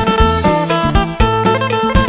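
Isan phin, the plucked lute of northeastern Thailand, playing a quick repeated melody over a steady drum beat.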